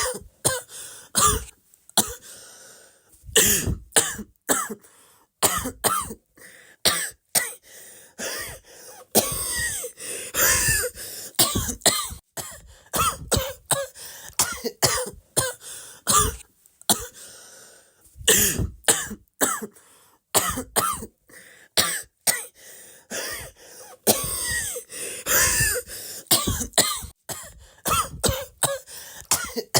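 A person coughing over and over: many short coughs in quick runs, with brief breaks between.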